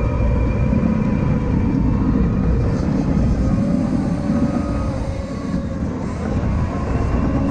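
CAT 953K track loader working, its diesel engine running steadily with a heavy low rumble and faint whining tones over it.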